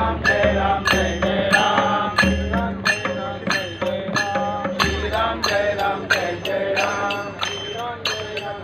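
Devotional music: drums struck in a steady beat, about two strikes a second with occasional deep booms, under a chanted melody.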